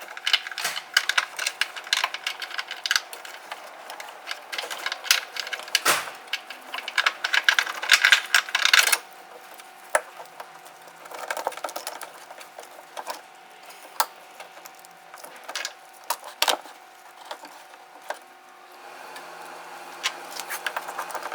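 Rustling and clicking of a car door wiring harness and its plastic connectors being fished back through, dense and busy for about the first nine seconds, then scattered clicks and knocks.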